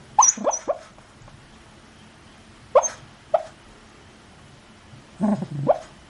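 A sleeping dog talking in its sleep: short muffled yips and whimpers, each falling in pitch, in three little groups, with a low grumble mixed into the last one near the end.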